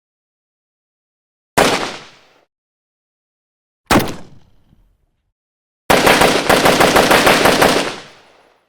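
Gunshot sound effects: two single shots a couple of seconds apart, each with a fading tail, then a rapid automatic burst lasting about two seconds.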